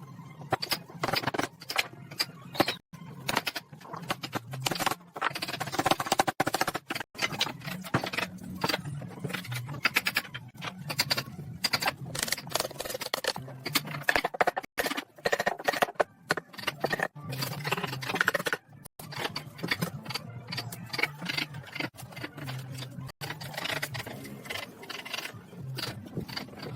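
A dense run of irregular knocks and taps from hand work on wood, broken by brief gaps.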